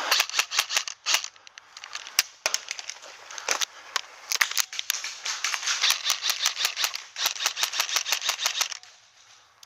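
Magpul PTS RM4 airsoft rifle firing quick strings of sharp shots, several in a row each time, in a handful of bursts. The firing stops about a second before the end.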